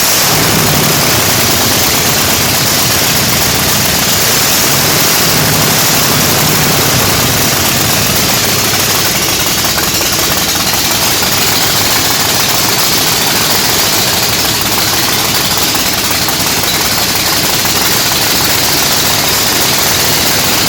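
Ford Mustang dragster's V8 engine coming in abruptly and running loud and steady.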